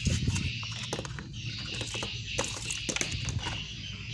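A string of small clicks and knocks from hands handling the series test bulb's holder and the meter leads, over a low hum. A steady, repeating high chirping runs in the background.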